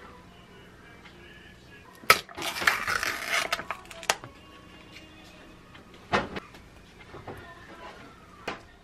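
A yogurt cup's foil lid is peeled back, giving a crinkly tearing rustle that starts about two seconds in and lasts over a second. Sharp taps and clicks of the plastic cup being handled come around it, with faint background music underneath.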